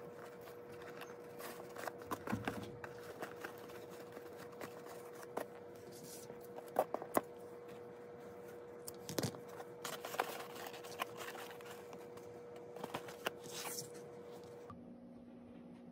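Jute twine rustling and rubbing against a molded-pulp takeout box as hands tie and tug a bow, with scattered small clicks. A couple of sharp scissor snips partway through as the twine ends are trimmed.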